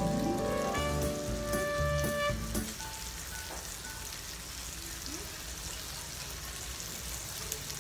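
Pork belly slices sizzling on a round grill pan for samgyupsal, with background music over the first two and a half seconds that then stops, leaving a steady sizzle.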